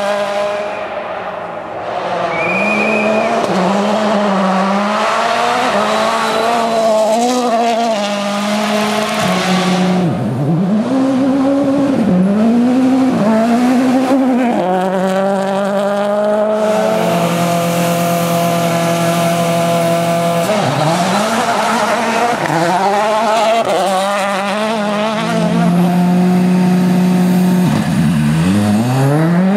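2011-spec World Rally Cars' 1.6-litre turbocharged four-cylinder engines at full throttle on a special stage. The engine note climbs through the revs and drops at each gear change, again and again, with a few stretches of held, steady revs as the cars pass.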